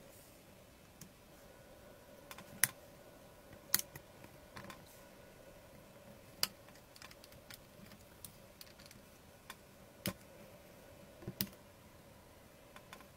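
Small sharp clicks and taps of metal tweezers and tools against the diecast body and tiny parts of a scale model car, scattered irregularly, a dozen or so, over a faint steady hum.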